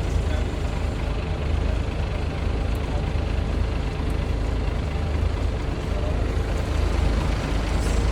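Heavy vehicle engine running steadily, a deep constant rumble with no change in speed.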